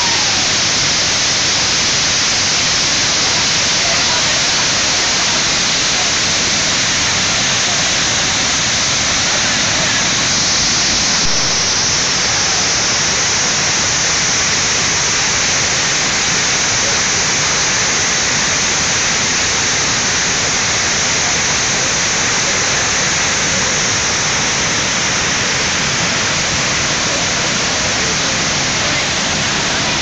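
Waterfall pouring over rock into a pool below, a loud, steady rushing of falling water that holds an even level throughout.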